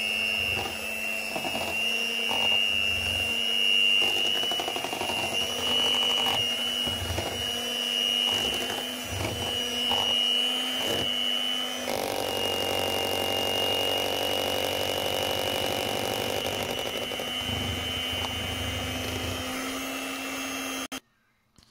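Electric hand mixer running steadily, its beaters whisking a thin rice-flour batter in a bowl, with occasional short knocks. The motor cuts off abruptly shortly before the end.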